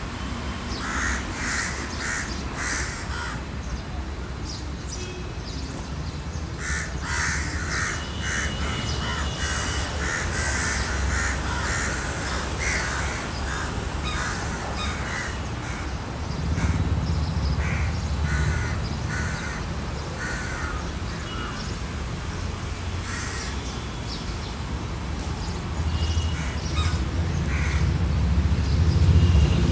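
Crows cawing over and over in short calls, over a steady low rumble that grows louder about halfway through and again near the end.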